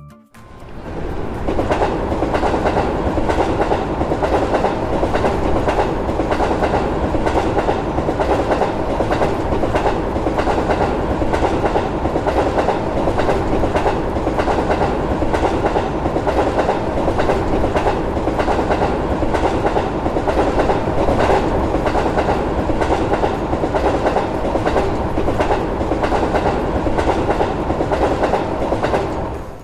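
A train passing at speed: a steady rumble with an even, rapid clickety-clack of wheels over rail joints. It swells in over about a second at the start and stops abruptly near the end.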